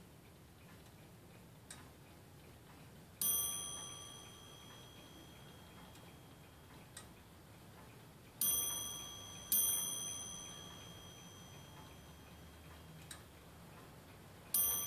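Antique French Vincenti 8-day cartel clock striking its bell four times, unevenly spaced, each strike ringing out and dying away over a couple of seconds, with the movement ticking underneath.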